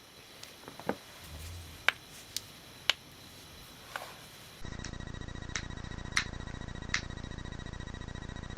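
Joints cracking: a series of single sharp pops, five in the first half, roughly a second apart. Partway through, a steady electrical hum with faint whining tones comes in, and three more pops sound over it.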